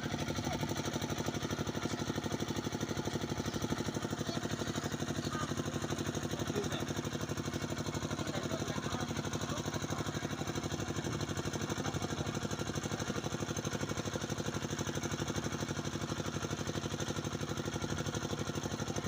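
A motor running steadily with a fast, even throb that does not change.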